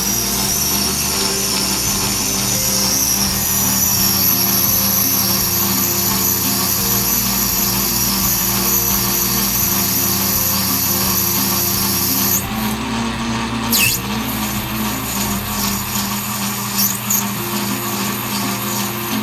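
Atlas Craftsman 12-inch metal lathe running steadily with a high cutting hiss from the tool working brass; the cutting noise stops suddenly about twelve seconds in while the lathe keeps running, and a few short clicks follow.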